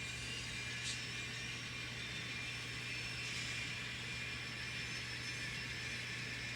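N scale model train locomotives running on the layout: a steady, faint motor whir with a constant low hum underneath.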